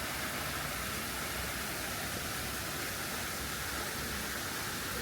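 Steady, even rushing noise of outdoor ambience with no distinct events.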